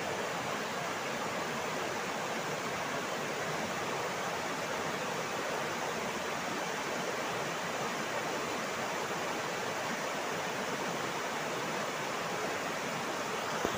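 River water rushing steadily over rocks and shallow rapids: a constant, even rush.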